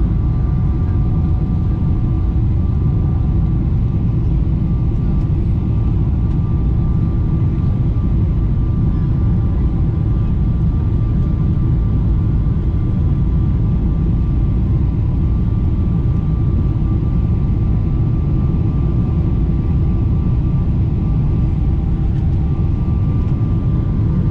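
Steady cabin noise inside a Boeing 777-300ER on descent: a deep rumble of its GE90 engines and rushing airflow, with a faint steady whine over it.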